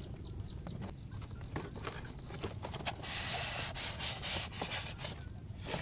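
Cardboard packaging box being handled and slid open: cardboard rubbing and scraping, loudest for a couple of seconds past the middle, with scattered light clicks and a sharp click at the very end.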